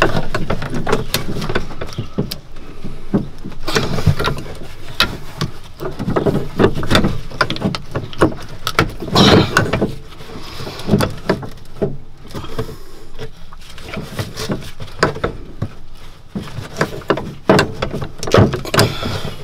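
Knocks, clinks and scrapes of metal parts being handled as a Polaris RZR drive shaft is worked by hand into its center carrier bearing, with many short sharp knocks throughout.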